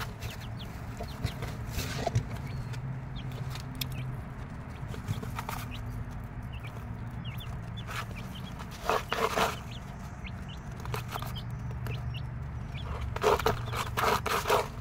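Mother hen clucking to her chicks in short runs of quick low clucks every few seconds, the fullest runs at about nine seconds in and near the end. A low steady hum runs underneath.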